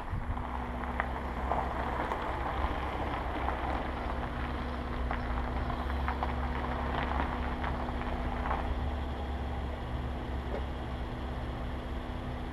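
A car rolls slowly over a gravel driveway to a stop, with its tyres crunching on the gravel over a low engine rumble and a steady hum. The crunching eases off about two-thirds of the way through.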